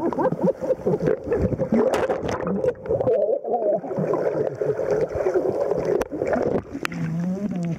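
Muffled sound of water sloshing and bubbling around a camera held just under the surface, with muffled voices mixed in and a short low hum near the end.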